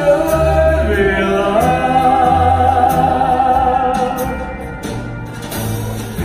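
Show music with a singer's voice over a bass line, the singer holding one long note for a couple of seconds in the middle.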